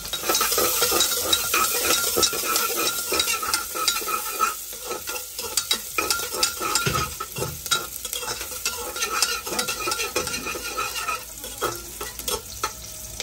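Food frying and sizzling in a pan while it is stirred, with many quick clicks and scrapes of a utensil against the pan.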